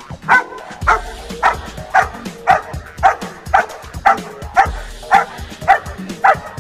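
German shepherd puppy barking over and over at a training helper during protection work, a sharp bark about twice a second.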